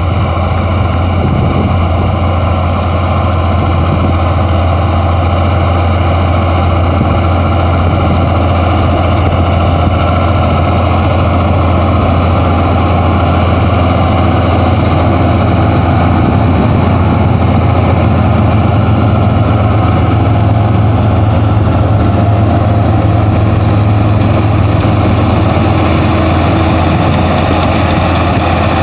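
Tractor diesel engine running steadily, a constant low drone.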